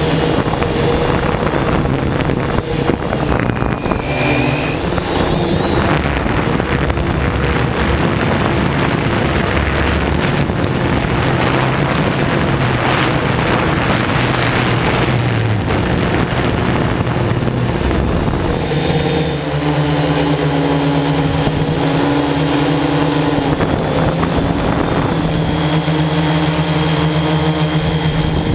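Hexacopter's six brushless electric motors and propellers running in flight, heard from a camera mounted on the craft: a loud steady whir with a hum and rushing noise. The hum changes about two-thirds of the way in.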